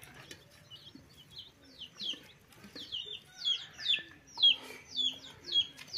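A bird calling over and over: short, high chirps that slide downward, about two a second, growing louder in the second half.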